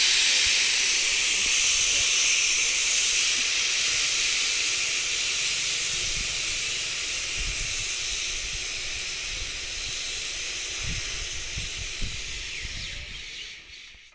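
Compressed air hissing out of a train's air brake system, loud and steady at first and slowly dying away, typical of the brake pipe venting while the locomotive is uncoupled for reversal. A few dull knocks come in the second half.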